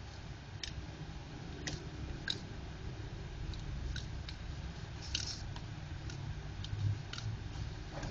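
Scattered small plastic clicks and creaks from a syringe pressed hard into an inkjet cartridge's fill hole by hand while ink is pushed in, over a steady low hum.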